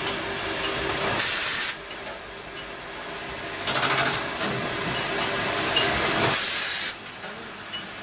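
Automatic lock-cylinder logo-stamping machine running: a steady machine hum broken by three hissing blasts of compressed air, about a second in, near the middle and near the end.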